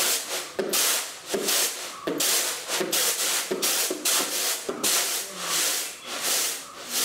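Rice grains swishing and rattling in woven bamboo winnowing trays, shaken and tossed in rhythmic strokes about two a second, to winnow husk, dust and small stones out of the milled rice.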